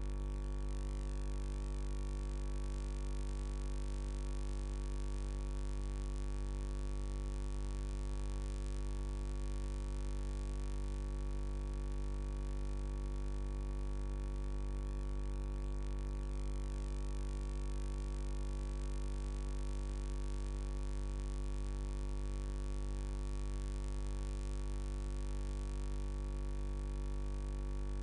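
A steady, unchanging low hum with many overtones, strongest at its deepest note, holding at the same level throughout.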